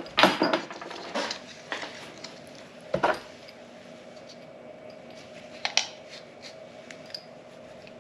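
Several short clinks and knocks of small metal pipe fittings and a water meter being handled, the sharpest about three seconds in and just before six seconds, over a faint steady hum.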